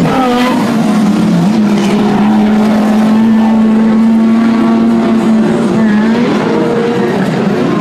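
Engines of short-course off-road race trucks running at racing speed around a dirt track, with one engine holding a steady pitch for several seconds in the middle before the pitch shifts again.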